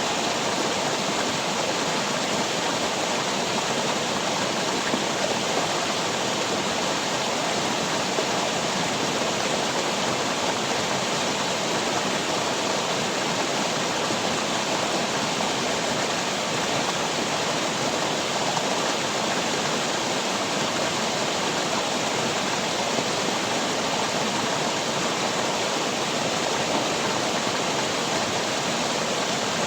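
Steady, unbroken rush of water, even and constant throughout.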